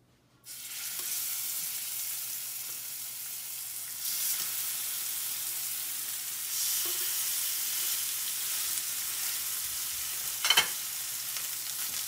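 Filet mignon steaks searing in hot olive oil in a cast iron skillet: a sudden sizzle as the first steak goes in about half a second in, getting louder as more steaks are laid in. A brief sharp knock near the end.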